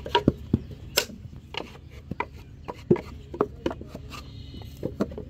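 A hand tool scraping and knocking against a half-dried clay brick as the brick is trimmed by hand: irregular sharp taps and short scrapes, a dozen or so, unevenly spaced.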